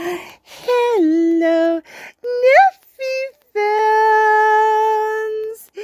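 A high voice singing a short wordless tune in a few phrases, ending on a long held note.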